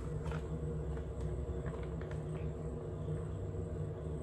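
Steady low rumble of room background noise, with a few faint clicks as a cardboard hair-dye box is handled.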